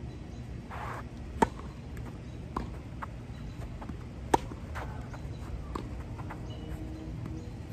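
Tennis rally: racket strings striking the ball in sharp single pops, the two loudest about a second and a half and four seconds in and another right at the end, with fainter hits and ball bounces in between.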